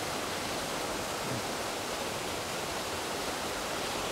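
Waterfall on a hill stream, its falling water making a steady, even rush.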